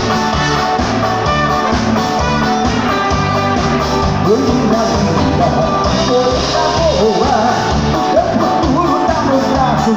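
Live dance band playing amplified music with electric bass, drums and trumpets; a man starts singing into the microphone about four seconds in.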